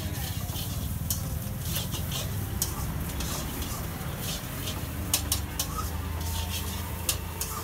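Metal spatula scraping and tapping on a flat griddle as a dosa is spread and cooked, heard as scattered sharp clicks over a steady low hum.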